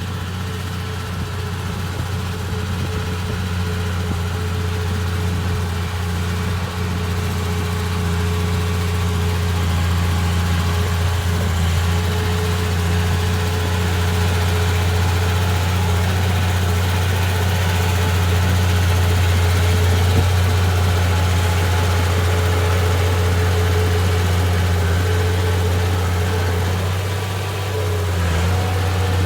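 Komatsu D31P bulldozer's diesel engine running steadily with a deep, even hum, easing briefly about 27 seconds in.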